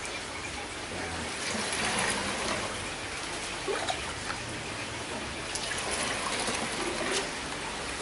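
Compost tea trickling through a screen filter in a cut plastic bottle into a watering can, with liquid sloshing as a scoop is dipped into the bucket of tea. A steady trickle with a few faint knocks.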